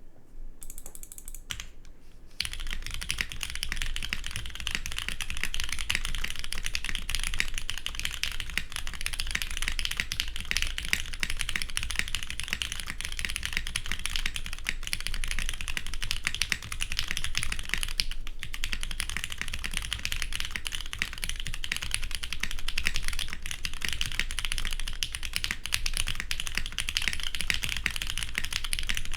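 Continuous fast typing on a Saevus Duality TKL mechanical keyboard with lubed, filmed pre-retool Cherry MX Black linear switches, an aluminium plate and GMK keycaps: a dense, even clatter of keystrokes that starts lightly and fills in about two seconds in.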